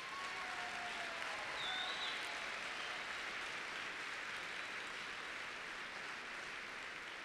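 Banquet audience applauding, a steady clapping that eases off toward the end.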